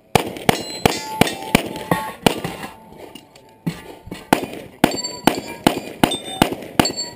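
Rapid strings of pistol shots, about three a second, in a USPSA stage run, with a short pause about three seconds in. Some shots are followed by the brief ringing clang of steel targets being hit.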